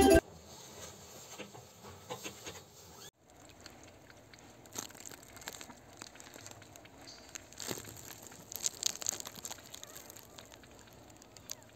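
Faint crinkling of a thin clear plastic glove being handled, with scattered soft clicks and a quicker run of them about eight to nine and a half seconds in.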